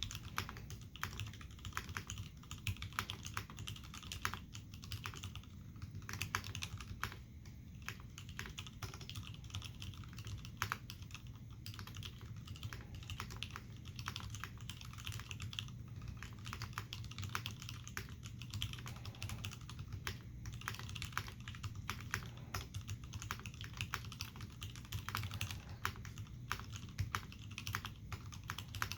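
Steady, continuous typing on an Iron180 mechanical keyboard with a forged carbon fibre plate and brass bottom. It has Hirose Cherry MX Clear tactile switches, lubed with 205g0 and filmed, under Cherry G81 dye-sublimated keycaps. The keystrokes come in a dense, irregular stream.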